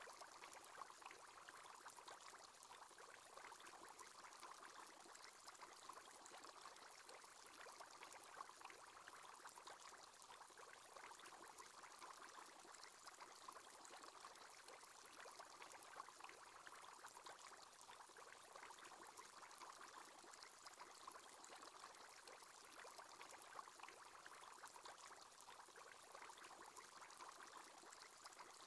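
Faint, steady bubbling of aquarium water: the simulated aerator bubble sound of an aquarium screensaver.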